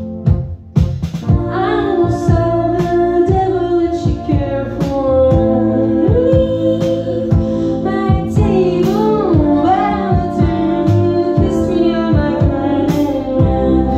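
A band playing live: synthesizer keyboards and electric bass over a steady beat, with women's voices singing from about a second in.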